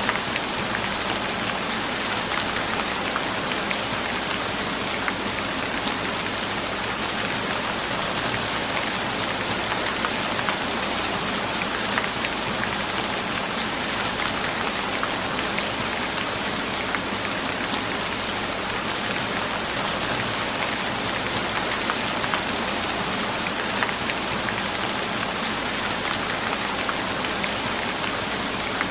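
Steady rain falling on a surface, a dense even hiss with scattered small drop ticks.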